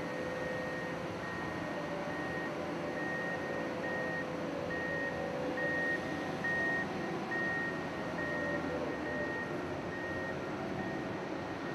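A heavy vehicle's warning beeper sounding a high, even beep about twice a second, growing louder toward the middle and fading near the end, over the steady hum of heavy plant machinery.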